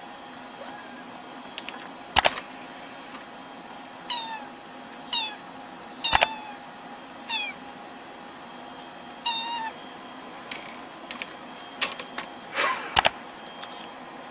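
A cat meowing: about five short, high-pitched mews roughly a second apart, mixed with a few sharp clicks or taps over a steady low hum.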